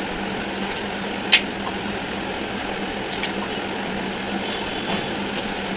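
Bombay duck fish cooking in its own juices and vinegar in a kadai over a gas burner: a steady, even hiss over a constant low hum, with one sharp click about a second in.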